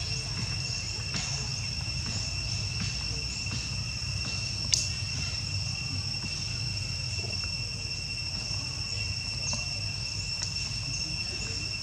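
Insects droning in a steady, unbroken chorus of two high tones, over a low rumble. There is one sharp click a little under five seconds in.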